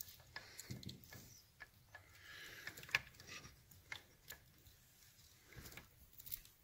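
Faint, irregular metallic clicks and clinks of gears and a shaft being worked by hand into a Triumph 650 four-speed gearbox shell, with one sharper click about three seconds in.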